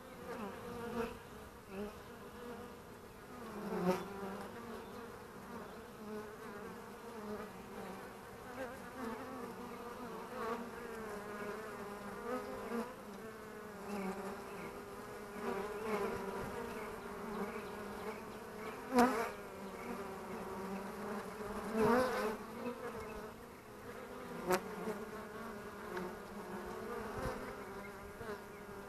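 Honeybee foragers buzzing at the hive entrance as they fly in and out: a steady hum that swells loudly whenever a bee passes close by, with a few sharp ticks.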